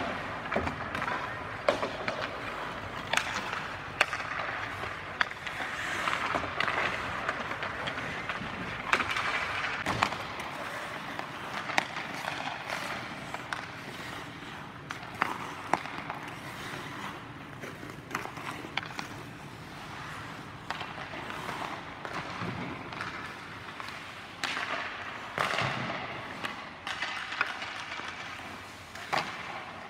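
Ice hockey skates carving and scraping across the ice in waves, with frequent sharp clacks of sticks hitting pucks.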